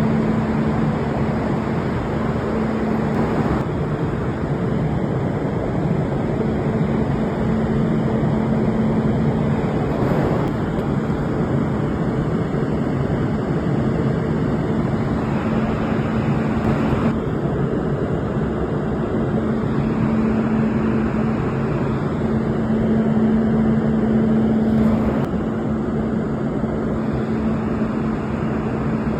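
RLC load bank running under load: a steady, loud rushing noise from its cooling fans, with a low hum that swells and fades several times.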